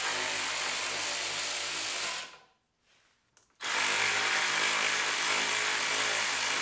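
Cordless drill spinning an 8mm socket to back out the screws holding a Mini Cooper S's factory intercooler. It runs steadily, stops a little over two seconds in, and starts again about a second later for the second screw.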